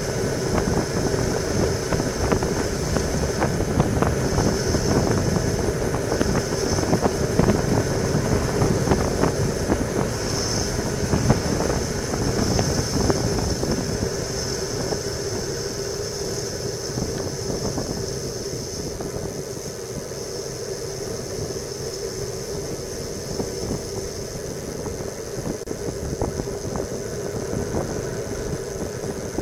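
Wind rushing over a bike-mounted camera's microphone, with tyre and road rumble, from a road bike descending at speed. The noise is louder in the first half and eases off past the middle as the bike slows.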